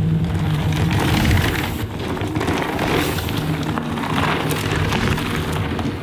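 Background music with steady low bass notes, mixed with the crunching hiss of mountain bike tyres rolling over a dirt and rock trail.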